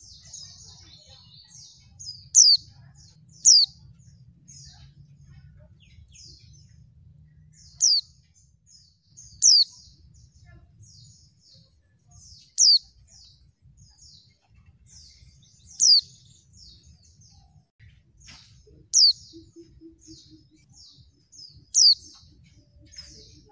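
Female white-eye (pleci) calling: a loud, sharp, high note that sweeps downward, repeated about eight times at uneven gaps of one to four seconds, with soft, quick twittering chatter between. This is the female's call, used as a lure to set male pleci answering and singing.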